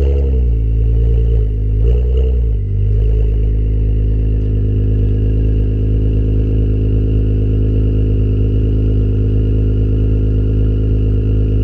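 2017 Acura NSX's twin-turbo V6 running through a PRIDE valved exhaust with catted downpipes, heard from the tailpipes. The revs come back down from a quick blip right at the start, rise and fall in a second short blip about two seconds in, then settle to a steady idle.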